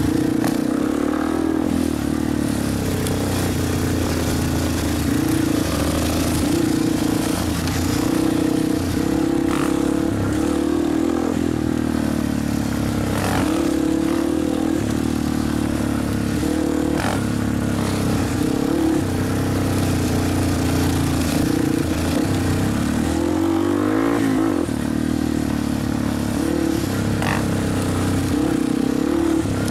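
Dirt bike engine running steadily, its pitch rising and falling with the throttle, with occasional knocks and rattles.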